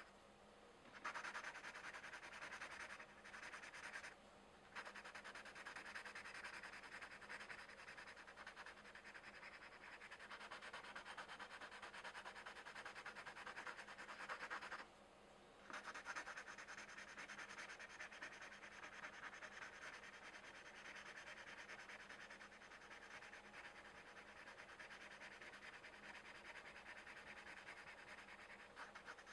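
Faint colored pencil rubbing and scratching on coloring-book paper in quick shading strokes, stopping briefly a few times, once about halfway through.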